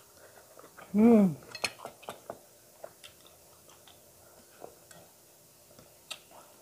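A person eating: a plastic spoon clicking and scraping on a plate, with soft chewing between. A short voiced hum about a second in is the loudest sound.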